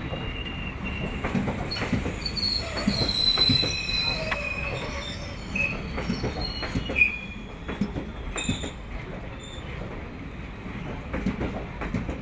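Indian Railways sleeper-class passenger coaches rolling slowly past an arriving train, their wheels knocking over the rail joints. High-pitched wheel squeal comes and goes through the middle stretch and fades out about three quarters of the way in.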